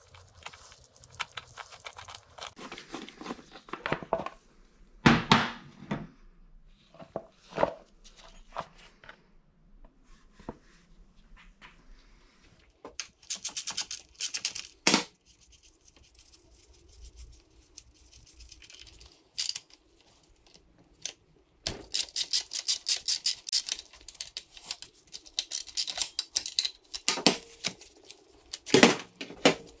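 Hand tools on a Yamaha PW80 dirt bike's engine during teardown: scattered metal clicks and knocks of bolts, sockets and parts being handled, the loudest a sharp knock about five seconds in. Rapid ratchet-wrench clicking comes in a short run around the middle and a longer run in the last third.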